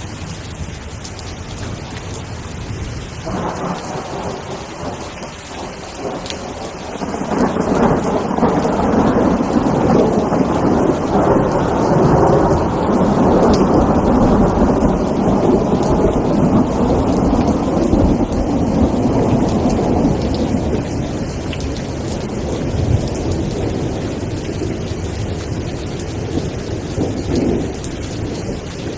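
Steady rain with rolling thunder: a long, low rumble builds a few seconds in, is loudest through the middle, and slowly dies away toward the end.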